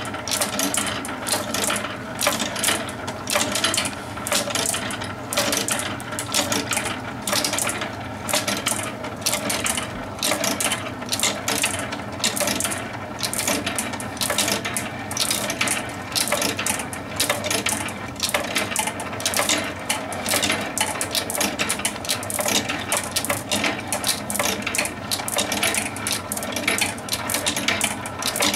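Handcrafted wooden steel-ball clock running: steel balls click and rattle continuously against one another and the wooden track as the chain lift carries them up and they roll along the rim of the wheel. A steady hum runs underneath.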